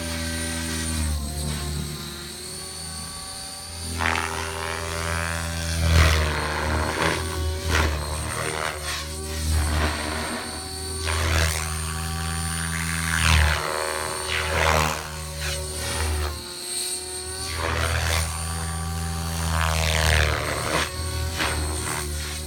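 Align T-Rex 700 radio-controlled helicopter flying, a steady multi-tone rotor and drive whine whose pitch sweeps up and down several times as it passes and maneuvers, swelling and fading in loudness.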